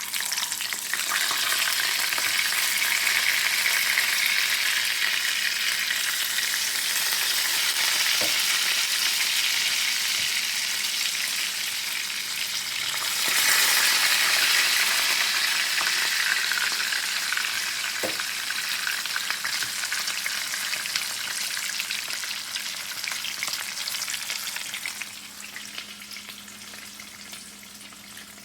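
Food frying and sizzling in a hot pan, a loud steady hiss. The sizzle swells again about halfway through, then dies down over the last few seconds.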